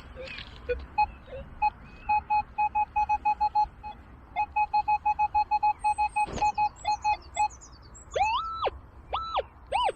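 Metal detector giving rapid short beeps at one steady pitch, several a second. From about eight seconds in come longer tones that glide up in pitch, hold, and drop away as the coil passes over a buried target.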